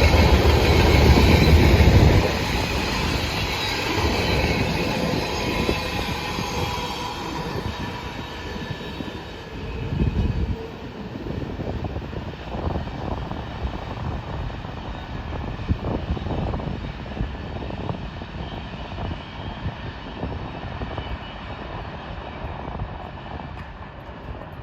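Freight train cars rolling past on the rails, loud for about the first two seconds, then the rumble drops off and fades away, with scattered clanks and knocks.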